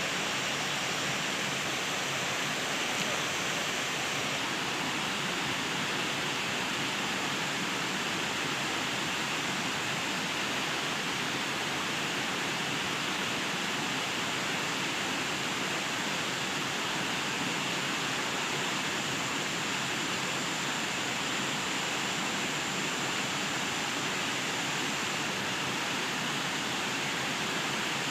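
Steady, even rush of flowing water in a small stream.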